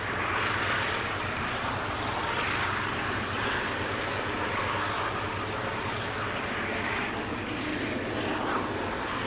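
Alco diesel locomotives, with one EMD unit in the consist, working under heavy load to lift a grain train up a grade. It is a steady, heavy engine drone with a rasping upper layer that swells and eases slightly about once a second.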